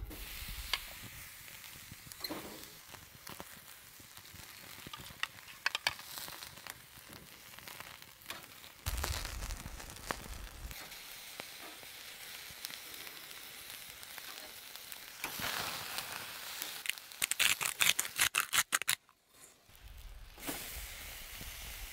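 Oiled courgette, onion and pepper slices sizzling on a grill grate over a wood fire, a steady hiss with sharp crackles and clicks, densest and loudest in a run of crackling about two-thirds of the way through.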